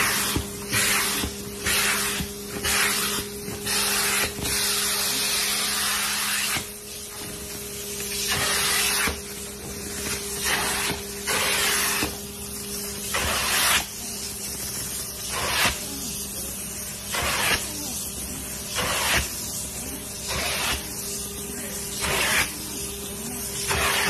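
Upholstery cleaning wand drawn in repeated strokes over sofa fabric: each stroke is a loud hiss of spray and suction, coming every second or two, over the steady hum of the cleaning machine's motor. One longer continuous hiss comes a few seconds in.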